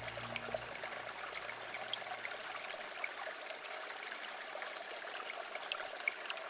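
Stream water trickling steadily, with many small bright splashes through it. A low held music tone fades out in the first second or so.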